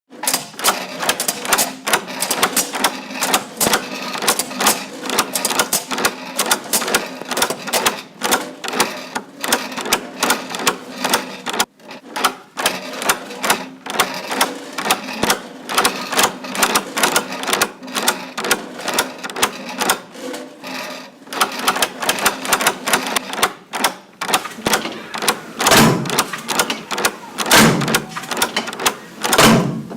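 Dense, rapid mechanical clicking and clacking, like keys being struck, over a low steady hum, with a few heavier knocks near the end.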